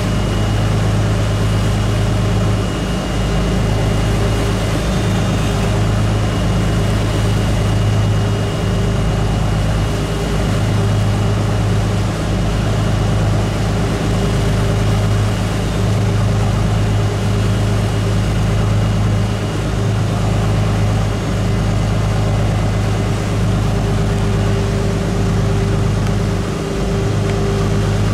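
Engine of a river shuttle boat running steadily under way, heard on board: a constant low drone over the rush of the churning wake.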